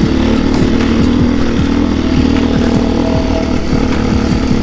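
KTM 530 EXC enduro motorcycle's single-cylinder engine running steadily under way, with many short knocks and rattles throughout.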